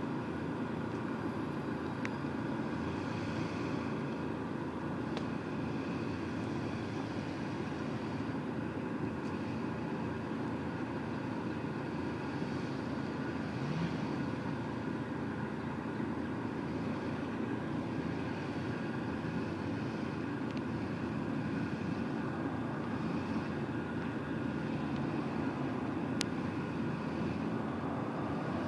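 A motor vehicle's engine idling steadily, a low even hum that holds level with no revving.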